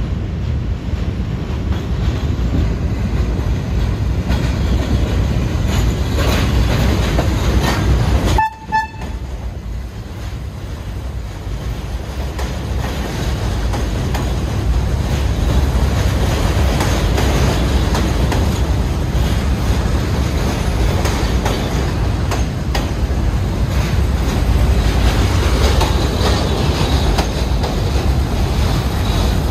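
New York City subway train running on the tracks: a loud, steady rumble of wheels on rail that grows louder in the second half. About eight seconds in, the sound briefly drops and two short beeps are heard.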